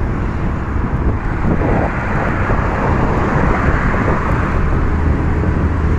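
Steady wind rush on the microphone with road and engine noise from a scooter under way in traffic.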